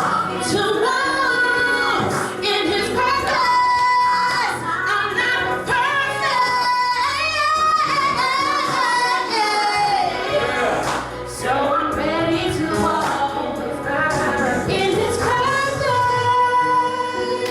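A woman singing in a high voice, with long held notes that waver in pitch and sliding runs between them.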